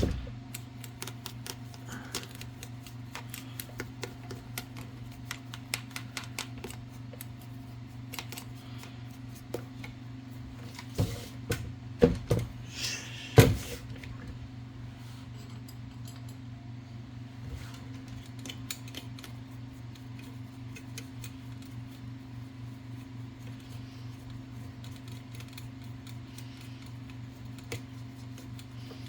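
Small metallic clicks and taps of an Olivetti typewriter carriage and tools being handled while its parts are oiled, with a few louder knocks about halfway through, over a steady low hum.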